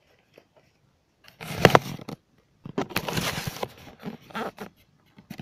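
Rustling and a sharp knock from the recording tablet being handled and moved, in two noisy bursts about a second apart, the first with the loudest knock, followed by a few faint taps.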